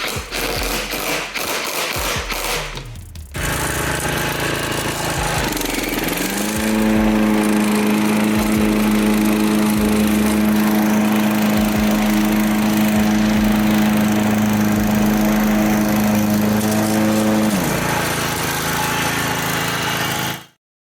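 John Deere 14SB push mower's small engine starting after a few seconds of clicking and knocking, then running steadily. A few seconds later a steady whine rises in pitch and holds, dropping away near the end.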